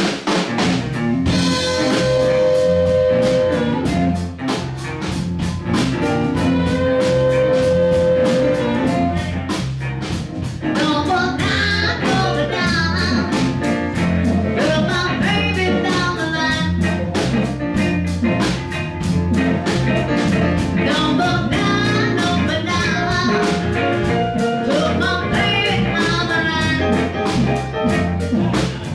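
Live electric blues band playing, with electric guitar, bass, drum kit and amplified harmonica. The harmonica holds long notes in the first several seconds, and a woman's singing voice comes in about ten seconds in.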